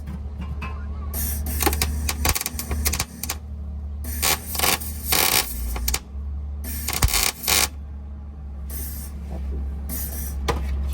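Wire-feed welder laying short tack welds: four or five crackling, sizzling bursts, each under two seconds, over a steady low hum.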